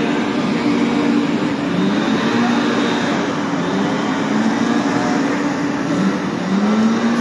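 Scania street sweeper truck working: a steady engine-and-machinery drone with a wavering engine tone that rises briefly near the end, as its brushes sweep confetti and streamers off cobblestones.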